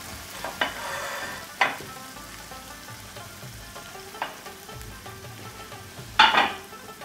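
Thick curry gravy sizzling faintly in a hot nonstick wok with the gas flame just turned off. A few light clicks come through it, and a louder knock near the end.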